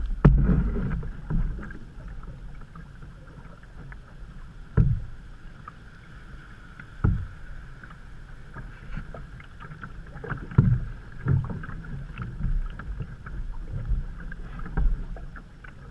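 Canoe being paddled down a swollen creek: paddle strokes splashing and water rushing along the hull, with irregular low thumps every second or few seconds.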